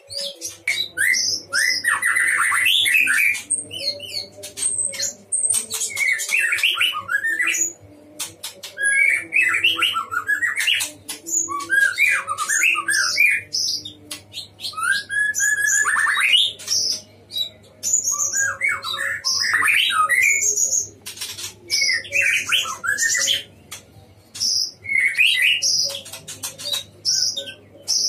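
White-rumped shama singing loudly in repeated phrases, one every two seconds or so. Each phrase mixes rich whistles and warbles with rapid dry clicks and rattles. A low steady hum runs underneath.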